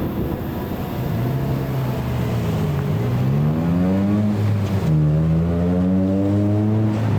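A road vehicle's engine accelerating. Its pitch dips, then rises over a couple of seconds, drops about five seconds in, and climbs slowly again.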